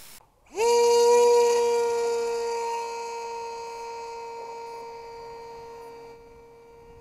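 Small FPV model plane's electric motor and propeller spinning up with a quick rising whine about half a second in, then holding one steady pitch and slowly getting quieter. The pitch drops at the very end as the throttle comes back.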